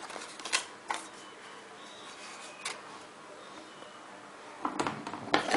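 An earphone retail box being opened and handled by hand: a few scattered clicks and light rustles, then a quick run of handling noises near the end.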